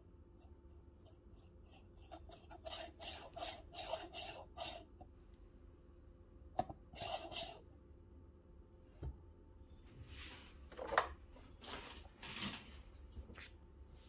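Scraping and tapping of ground coffee being worked in a metal espresso portafilter under a dosing funnel. A run of quick scratchy strokes comes first, then a click and short scrape, a low knock, and more scraping with a sharp knock near the end.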